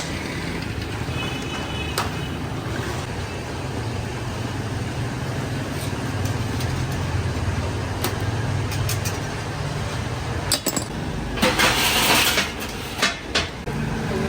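Street ambience: a steady low engine or traffic rumble with scattered metallic clinks and clicks, and a loud hiss lasting about a second about eleven seconds in.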